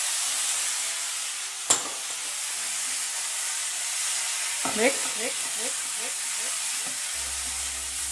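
Soy sauce sizzling in a hot non-stick pan of shredded chicken, onion and capsicum as it is stirred with a silicone spatula: a steady frying hiss, with a sharp click a little under two seconds in and another about five seconds in.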